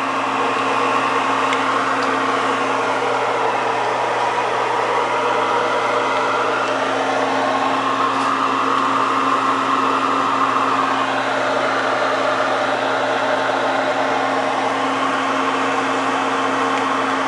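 A carrot bubbling and sizzling in hot frying oil, the test that the oil is hot enough for frying doughnuts, over a steady mechanical hum.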